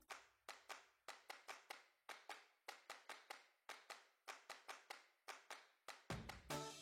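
Near silence with a faint run of short clicks, about four a second; quiet music comes back in near the end.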